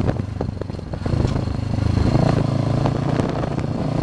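Motorcycle engine running during a ride, with rattling knocks from the bike over the road; the engine gets louder about a second in.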